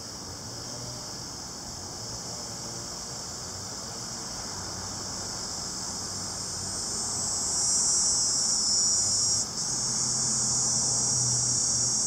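Cicada song: a steady, high-pitched electric buzz that swells louder over the second half, with a brief break near the end.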